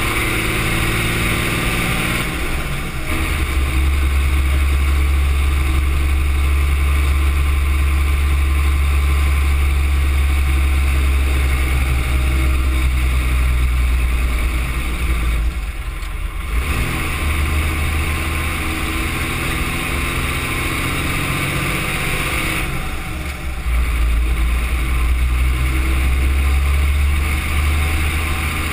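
M35A2 deuce-and-a-half's turbocharged multifuel inline-six engine running under load, heard from inside the cab while driving. The engine note drops briefly about halfway through and again near the end as gears are shifted.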